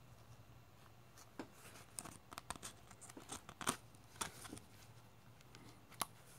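Faint crinkling and crackling of a handmade collage book's paper and fabric pages being handled, a scatter of small crackles in the first half and one sharper click near the end.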